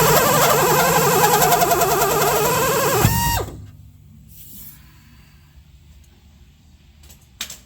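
Right-angle Mac drill running a one-inch hole saw, cutting with a loud wavering whine, then released about three seconds in and spinning down. After that it is fairly quiet, with a short click just before the end.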